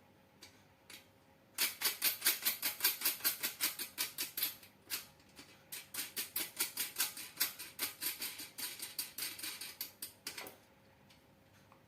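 Rapid metallic clicking, about five clicks a second, from bolts being fastened on a homemade grinder's mount, with a brief slackening midway.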